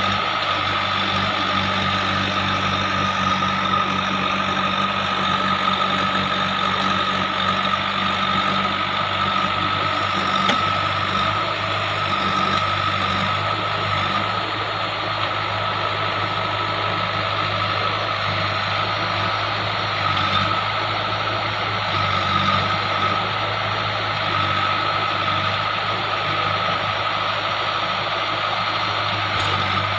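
JCB 3DX backhoe loader's diesel engine running steadily, with a steady high whine over the engine hum.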